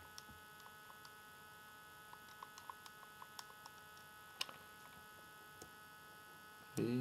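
Steady electrical hum of a recording setup, with a few faint clicks scattered through it and a short voice sound just before the end.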